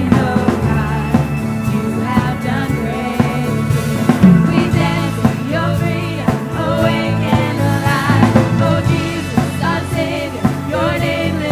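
Worship music: singing over a band with drums.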